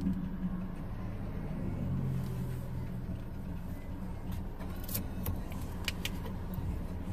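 Car cabin noise while driving: a steady low engine and road rumble. A few light clicks and rattles come in about two-thirds of the way through.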